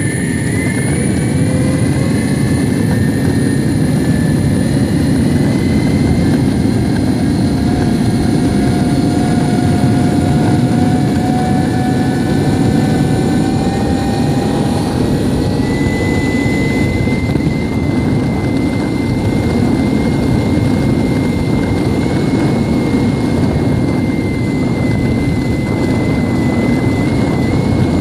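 Metroboard electric skateboard riding fast on asphalt: a loud, steady rumble of the wheels on the road surface, with a thin electric-motor whine that creeps up in pitch as speed builds.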